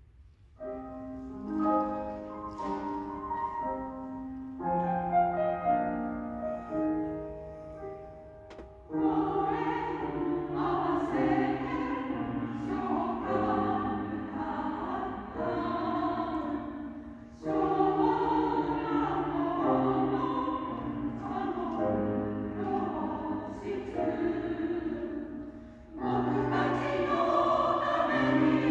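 A piano plays an introduction of about eight seconds, then a choir comes in singing with the piano accompanying, in phrases with short breaks between them.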